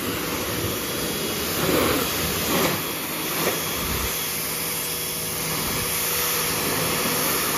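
Kärcher K1900PS electric pressure washer running, its jet spraying water onto a car's hood with a steady hiss.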